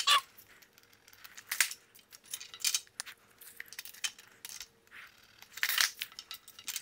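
Scattered light metallic clinks and scrapes of cut metal strapping being handled and marked with a nail.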